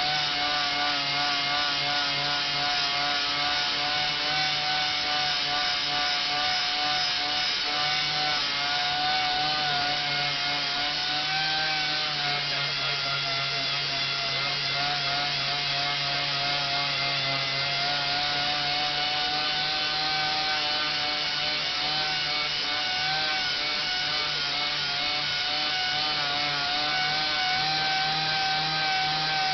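Random orbital sander running steadily on a Corian solid-surface countertop, sanding out a deep scratch. Its pitch drops for about five seconds around the middle, then comes back up.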